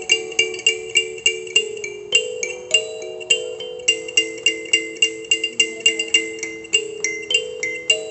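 A 13-tine Fahn Dee kalimba played in a steady, quick pattern of about four to five plucked notes a second, each note ringing briefly. A low two-note figure alternates under higher bell-like notes.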